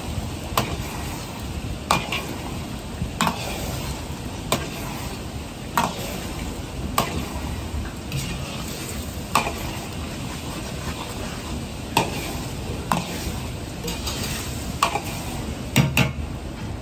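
Beaten eggs sizzling in hot oil in a wok while a metal wok ladle stirs them, the ladle clinking and scraping against the wok every second or so.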